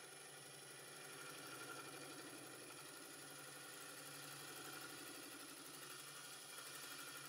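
Wood lathe running with a bowl gouge cutting a spinning, green spalted sugar maple bowl blank: a faint, steady motor hum with a thin high whine and the fluttering scrape of the cut.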